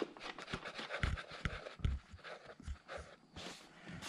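Ratchet wrench clicking in short runs, with light knocks of metal handling, as the seat's rear mounting nuts are run down onto their bolts.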